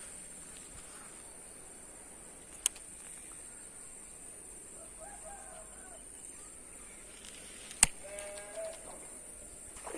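A farm animal bleating in short calls, about halfway through and again after a sharp click near the end, over a steady high-pitched whine; a second sharp click comes a little before the middle.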